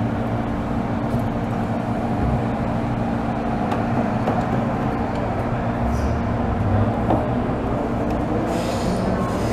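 MTR M-train electric multiple unit running, heard from inside the car: a steady hum from the traction equipment with wheel-on-rail rumble, and a few brief hisses.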